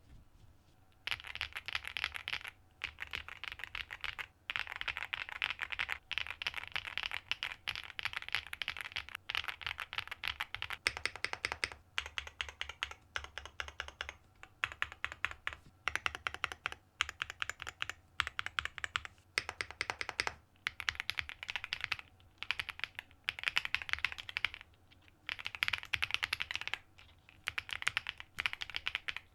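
Fast typing on a WOBKEY Rainy 75 mechanical keyboard with Kailh Cocoa switches: rapid keystroke clicks in runs of a few seconds with brief pauses, starting about a second in.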